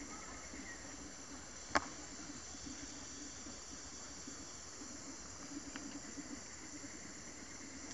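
Steady high-pitched drone of insects chirring. A single sharp click just under two seconds in, and a fainter one near the end.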